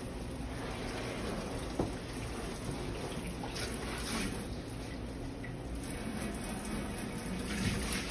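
Water spraying steadily from a pull-out faucet sprayer head onto the glass of an empty aquarium as it is rinsed out, with a single light knock about two seconds in.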